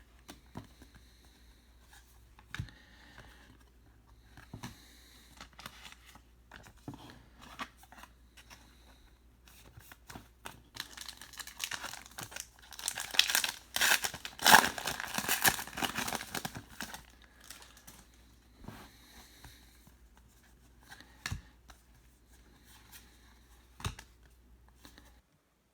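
Foil wrapper of a trading-card pack being torn open and crinkled, loudest for several seconds a little past the middle, with soft rustles and clicks of cards being handled around it.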